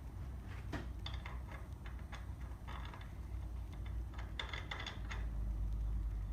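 Scattered light metallic clicks and ticks from bolts, nuts and the new leaf spring hanger and shackle being handled and fitted, over a low steady rumble.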